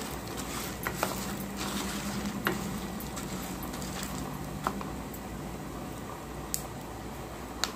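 Wooden spatula stirring dry-roasting lentils, rice and dried red chillies in a metal kadai: a handful of scattered clicks and scrapes over a steady hiss.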